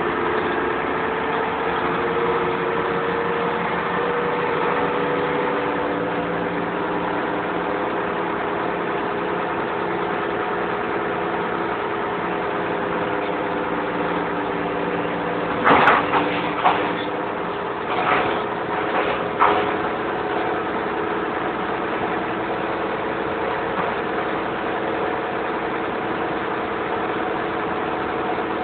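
A vehicle engine idling steadily. A little past halfway there are four short, sharp knocks over about four seconds.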